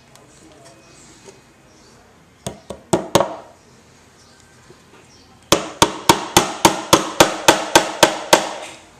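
Small hammer tapping a tiny brad into a wooden canoe seat frame: four quick taps, then after a pause a steady run of about a dozen taps, roughly four a second.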